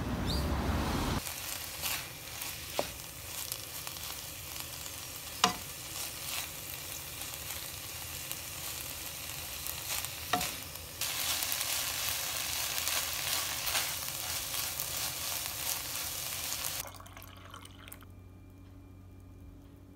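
Bean sprouts and vegetables stir-frying and sizzling in a pan, with a few sharp clacks of the utensil against the pan. The sizzling gets louder partway through and stops a few seconds before the end.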